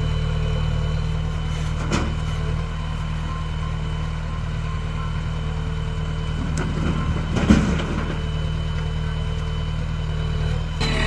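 Heavy machinery's diesel engine running steadily, with a short clunk about two seconds in and a louder one about seven and a half seconds in.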